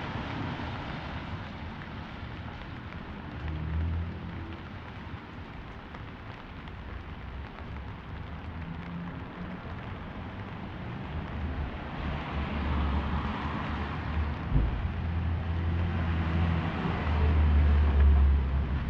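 Rainy city street ambience: a steady hiss of rain and tyres on wet pavement, under the low hum of vehicles. The hum swells twice in the second half, and a single sharp knock sounds about two-thirds of the way through.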